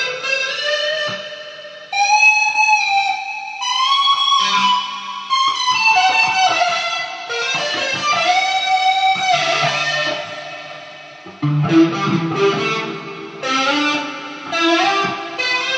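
Guitar playing a slow melody of long held notes that slide from one pitch to the next. Lower notes join in about two-thirds of the way through.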